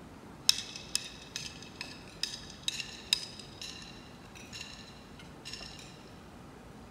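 A series of light clinks, each ringing briefly, about two a second, growing fainter and stopping about six seconds in.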